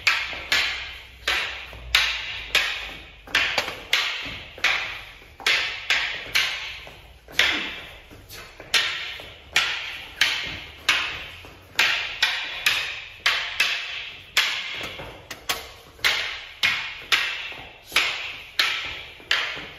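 Wooden staffs clacking against each other in a two-person Shaolin staff set. The sharp strikes come one or two a second throughout, each with a short ringing decay.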